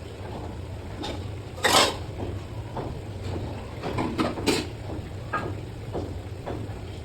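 Metal kitchen utensils knocking and clattering against cookware over a steady low hum. The sharpest knock comes about two seconds in, with a few more around the middle.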